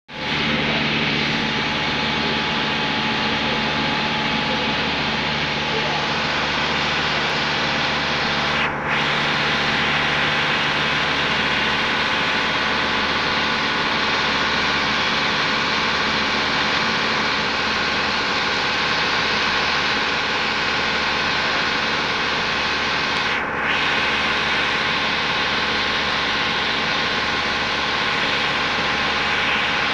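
Motorboat under way: a steady engine hum under the rushing and churning of water along the hull and wake.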